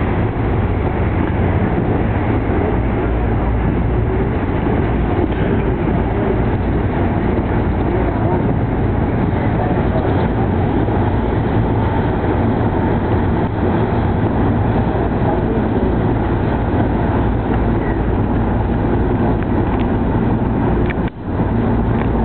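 Steady low rumble of a boat's engine and water wash on the river, with a brief drop-out near the end.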